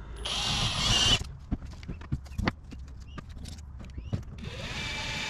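Cordless drill drilling a screw hole into metal: two bursts of high-pitched grinding about a second long, one near the start and one near the end, with sharp clicks and handling knocks between.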